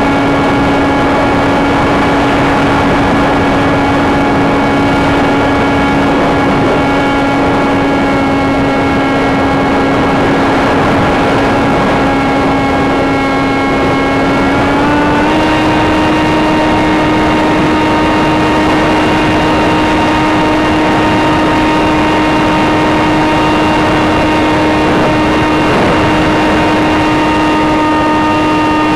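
Electric motor of a Sky Surfer RC plane running with a steady whine, heard from the plane itself over a heavy rush of wind noise. About halfway through, the pitch steps up slightly and then holds at the higher note.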